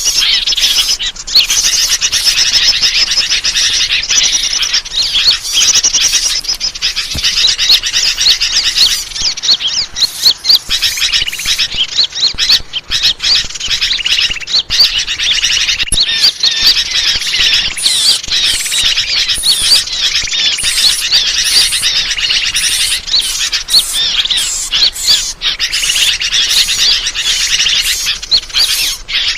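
Bird-lure (pikat) recording: a dense chorus of many small birds chirping rapidly in high notes, played to draw in wild birds.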